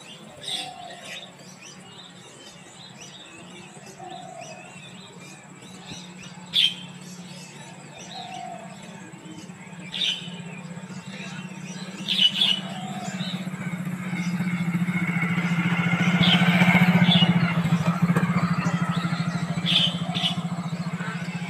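Mynas giving short, sharp single calls every few seconds. Under them runs a steady low engine hum that swells, as a vehicle passes, from a little past the middle until near the end.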